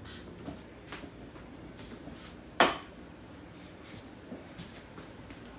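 One sharp knock about two and a half seconds in, with a few faint clicks over quiet room tone.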